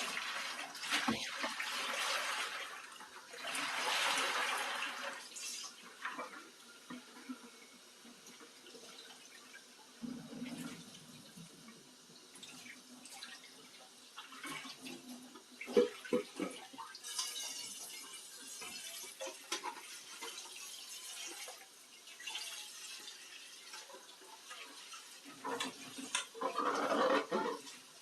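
Kitchen sink tap running on and off in spells while dishes are washed, with a few sharp clinks and knocks of dishes in the middle.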